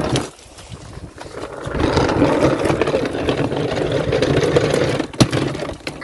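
A Henry vacuum cleaner dragged over rough paving slabs, its plastic wheels rolling with a loud, uneven rumbling scrape for about four seconds. There is one sharp knock about five seconds in.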